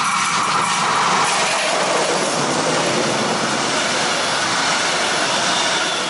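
Electric-locomotive-hauled train of double-deck passenger coaches passing close at speed: the loud, continuous rush and rumble of steel wheels on rail. A steady whine is heard in the first second or so as the locomotive goes by, and the sound starts to fade at the very end as the last coaches draw away.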